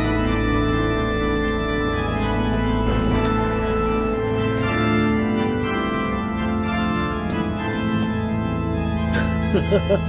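Background music of sustained, organ-like chords. About nine seconds in, a sudden new figure comes in that pulses rapidly, several beats a second.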